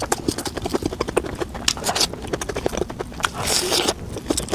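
Close-up wet chewing and lip-smacking, a quick run of short smacks several times a second, with a short hissing breath or slurp near the end.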